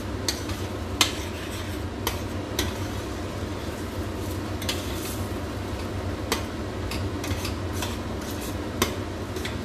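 A spatula stirring egg and bitter gourd in a frying pan, with scattered sharp clicks and knocks against the pan over a steady background hum.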